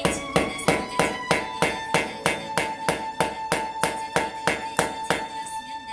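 Background music with a steady, fast percussive beat of about three strikes a second under a held melody note.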